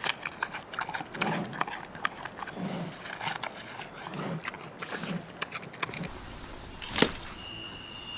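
Western lowland gorilla feeding on leafy stems: crackling and rustling of leaves with chewing, and short low sounds about once a second. A sharp snap about seven seconds in.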